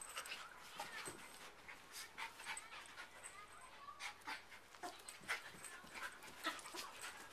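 Two dogs play-wrestling: faint, irregular scuffling and quick clicks of paws, bodies and jaws, with panting.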